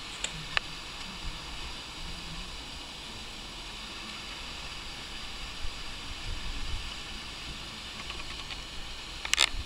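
Steady background hiss without words, with two faint clicks in the first second and a sharper cluster of clicks near the end.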